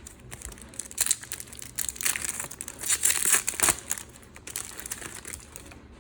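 Crinkly plastic-foil trading-card packet being crumpled and handled, in irregular crackling rustles that are loudest in the middle.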